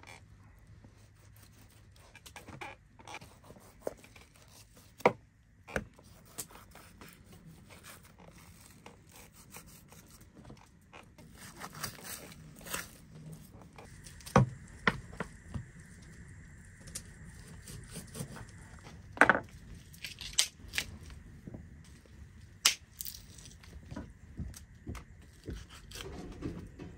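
Butchering a raw carcass with a knife on a wooden cutting board: meat tearing as it is cut and pulled off the ribs, the blade scraping along bone, and scattered sharp knocks of knife and bones on the board.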